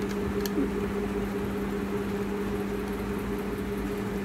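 Steady electric motor hum, with a few faint light clicks about half a second in.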